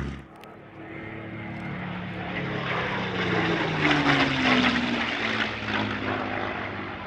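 Propeller aircraft engine flying past, getting louder to a peak about four seconds in, its pitch dropping as it goes by.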